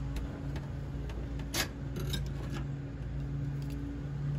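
A few light clicks and taps from a knife and butter being handled over a plate of cooked acorn squash halves, the sharpest about one and a half seconds in, over a steady low hum.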